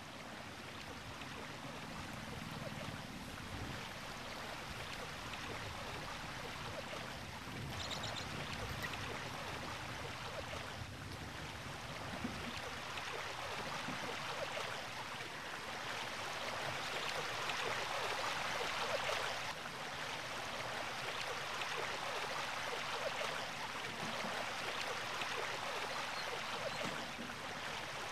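Steady outdoor rushing ambience, growing somewhat louder in the second half, with a brief high chirp about eight seconds in.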